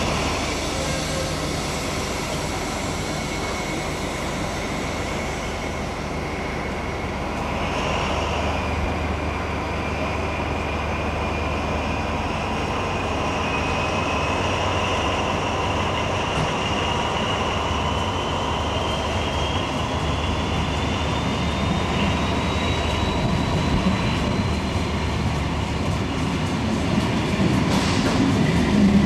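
A pair of diesel locomotives hauling passenger coaches slowly out of a station. The engines rumble low and steady, while a high whine climbs slowly in pitch as the train gathers speed. Near the end there are wheel knocks and clacks from the rails.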